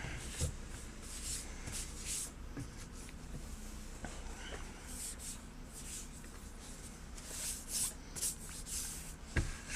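An adhesive plastic protective skin being peeled off a MacBook Pro's metal case: a series of short tearing hisses as the sticky backing lets go, with a light knock near the end.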